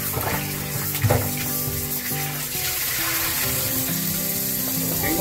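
Cold tap water running as boiled pork back ribs are rinsed, with background music playing.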